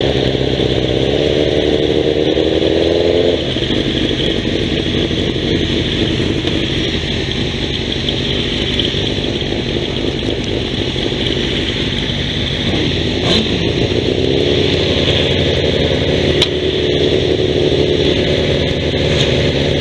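Grasstrack racing sidecar engines running on the start line: held at raised revs for the first few seconds, dropping back about three and a half seconds in, then lifted again for a couple of seconds later on. Two sharp clicks stand out near the end.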